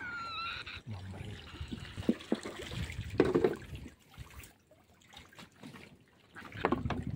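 Water trickling and splashing, with a few light knocks, and a short squeaky chirp right at the start.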